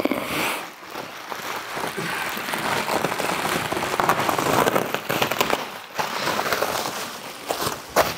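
Bubble wrap being pulled off and bunched up by hand: a continuous crinkling crackle of plastic with many small sharp clicks.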